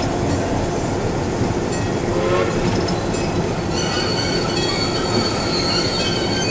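Locomotive rolling with its engine running, heard from inside the cab, as the brakes are applied: a high, steady brake squeal comes in about two seconds in and grows stronger as the locomotive slows.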